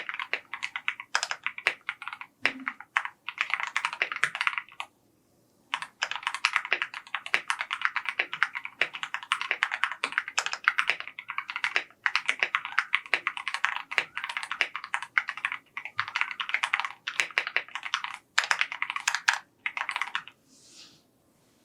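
Fast typing on a mechanical keyboard, keystrokes clicking in quick continuous runs. There is a short pause about five seconds in, and the typing stops near the end.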